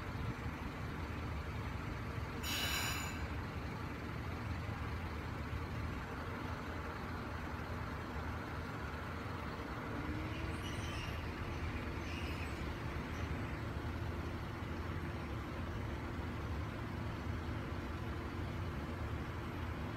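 A KiHa 75 diesel railcar's engine idling steadily, with a short hiss of released air about two and a half seconds in. A faint steady hum joins in about ten seconds in.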